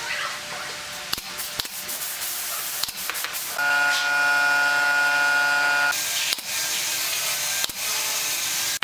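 Pneumatic brad nailer driving nails into the wooden edge of a tabletop: a series of sharp shots at irregular intervals over a steady hiss. For about two seconds in the middle a steady pitched tone sounds.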